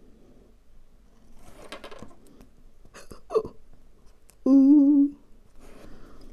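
A woman humming a short, wavering "mmm" about four and a half seconds in, the loudest sound, with a brief falling vocal sound just before it. Faint scratching of a precision knife on the milk-carton plate in the quieter stretches.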